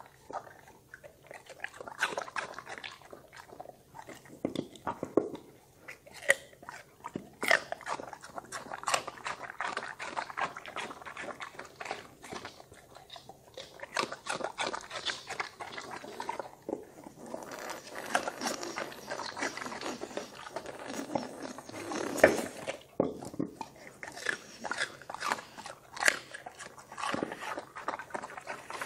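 A Doberman chewing raw cucumber slices, joined near the end by a Shar-Pei: irregular crisp crunches and bites.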